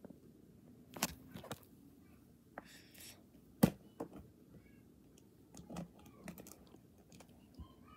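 Hard plastic toy animal figurines being handled, clicking and knocking against each other in scattered light taps, with one sharper knock near the middle.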